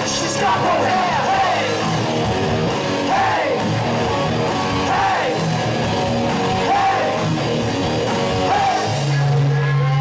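Live rock band playing loud: electric guitars, bass and drums with men singing and yelling into microphones. Near the end the band holds one low note as the song finishes.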